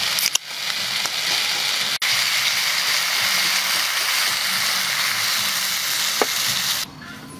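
A beer can's ring-pull clicks open about a third of a second in, followed by a steady, loud sizzle of chicken feet frying in a hot wok as beer is poured over them. The sizzle drops away near the end.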